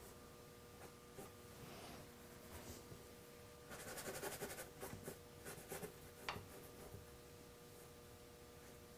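Paintbrush bristles scrubbing and dabbing oil paint onto a stretched canvas: faint, quick scratchy strokes, bunched together in the middle and ending in a sharp tap.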